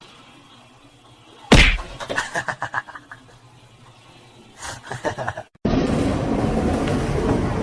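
A hard thump, then a quick run of light knocks, with a few more knocks a couple of seconds later. Then steady noise sets in suddenly.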